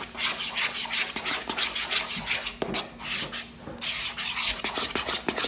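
Spatula stirring and scraping thick fluffy slime against the sides of a plastic bowl, a quick run of wet, scratchy strokes with a brief pause a little after three seconds in.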